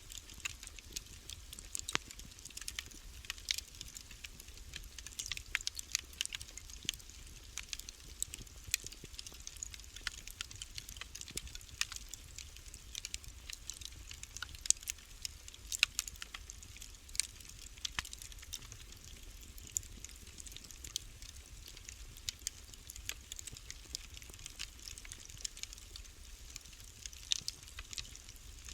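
Wood fire crackling in a fireplace: irregular sharp pops and snaps, several a second, over a soft hiss.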